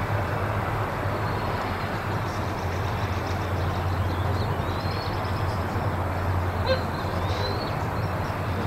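Steady outdoor background noise: a constant low rumble with hiss, and a few faint, short high chirps.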